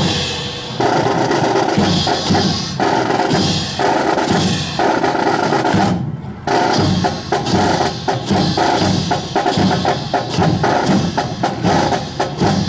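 A rifle drill team beating out a fast percussive rhythm in unison with their M1 rifles: a rapid clatter of knocks and slaps, breaking off briefly about half a second in and again about six seconds in.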